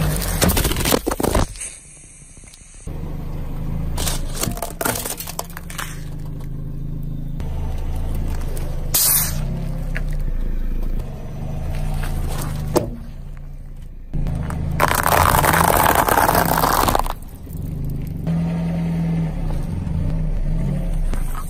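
A car tyre rolling slowly over objects on asphalt and crushing them one after another, a plastic soda bottle among them, with cracking and scraping over a steady low hum. Sharp cracks come near the start and about nine seconds in, and a loud rush of noise lasts about two seconds about two-thirds of the way through.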